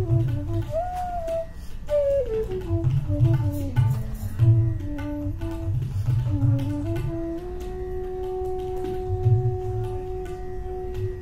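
Bansuri bamboo flute playing a melody that winds downward with slides between notes, then holds one long steady note from about seven seconds in. Tabla accompanies underneath with rhythmic strokes, including deep bass-drum strokes.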